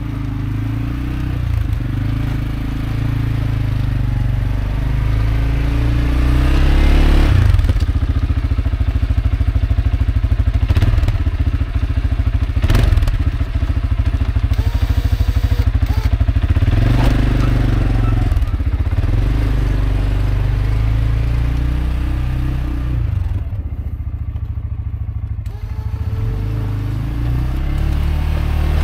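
CFMoto CForce 520L ATV's single-cylinder engine running under load while plowing snow, its revs rising and falling. Several sharp clunks come through in the middle stretch.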